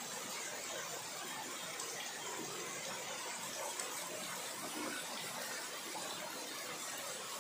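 Heavy rain pouring steadily onto dense tree foliage, an even, unbroken hiss.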